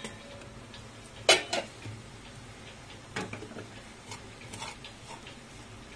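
Steel spoon clinking and scraping against a frying pan while stirring spice powders into a crumbly fried lentil filling. A sharp clink about a second in is the loudest, with fainter taps and knocks every second or so after.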